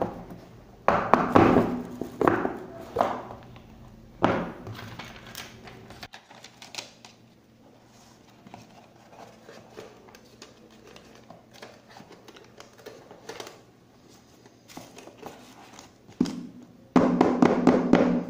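A cardboard smartphone box being handled and set down on a table, with light thumps and soft scraping. Short stretches of a man humming a tune: about a second in, around four seconds, and again near the end.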